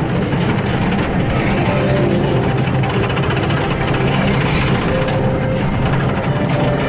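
Wooden roller coaster's Timberliner train reaching the top of the lift hill and rolling over the crest into the first drop, its wheels running steadily on the wooden track.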